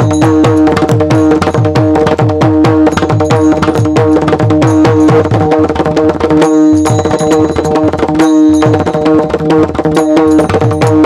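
Mridang (Warkari pakhawaj drum) played in a fast, dense rhythm, with small hand cymbals (taal) ringing along over a steady held drone. The drumming breaks off briefly twice, about six and a half and eight seconds in.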